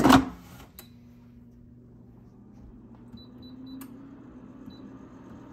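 Digital air fryer: the basket slides home with a clatter and a click, then the fan starts and runs with a steady hum that swells slightly. Its touch panel gives three quick short beeps and then one more as the time and temperature are set.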